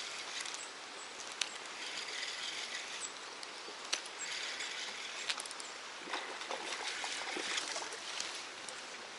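Outdoor waterside ambience: a steady running-water hiss, with a few sharp clicks and short stretches of brighter high hiss.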